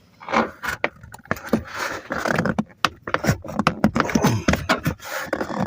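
Plastic lower dash trim panel being tugged and worked loose from its clips: a run of irregular clicks, knocks and creaks, with rattling.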